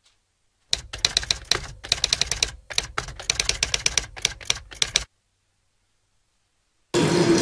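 Typewriter sound effect: a fast, uneven run of key clicks lasting about four seconds, then stopping abruptly.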